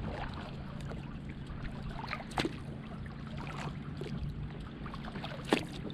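Kayak paddle strokes, the blade dipping in and water dripping off it, with a sharp knock about two and a half seconds in and a louder one near the end. A faint steady low hum runs underneath.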